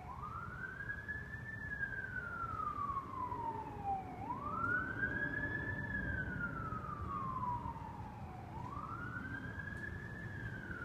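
Emergency-vehicle siren on a wail cycle: each cycle sweeps up quickly and then falls slowly, about every four seconds, three times in all, over a steady low rumble.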